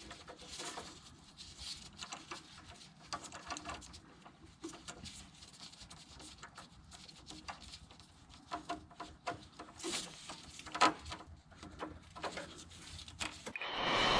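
Scattered light clicks, taps and rubbing of hand tools being handled and worked on metal, irregular and fairly faint.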